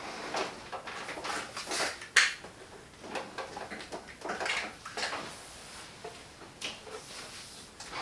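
Scattered short scuffs, scrapes and knocks from someone squeezing into the gap behind a pulled-out refrigerator, with the sharpest knock about two seconds in.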